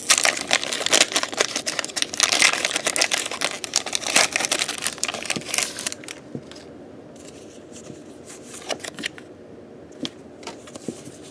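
Foil wrapper of a Pokémon trading card booster pack crinkling and crackling as it is torn open and the cards are pulled out, dense for about six seconds. After that it turns quieter, with only occasional clicks and rustles as the cards are handled.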